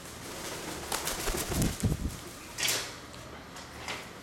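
Blue-and-gold macaw flapping its wings: a run of whooshing wingbeats about a second in, followed by a short harsh burst of sound near the three-second mark and a weaker one just before the end.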